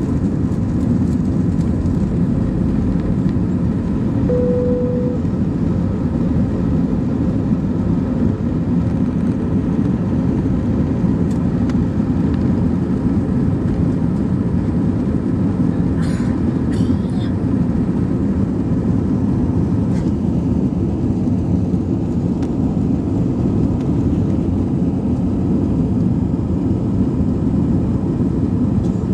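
Steady low roar of an Airbus A319's engines and airflow heard from inside the passenger cabin, with a short steady tone about four seconds in and a brief clatter of clicks a little past the middle.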